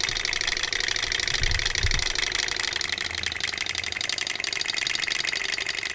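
Small hot-air Stirling engine kit running at speed, its flywheel and piston linkage making a rapid, even mechanical ticking. A low bump comes about one and a half to two seconds in.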